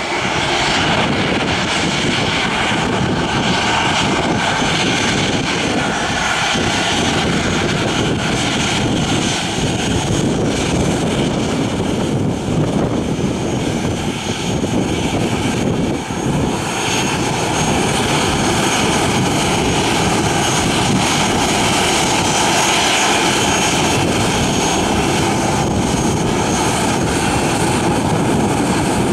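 Boeing 737-800's CFM56-7B turbofan engines running at low taxi power: a steady jet rush with a faint high whine, holding level throughout with no spool-up.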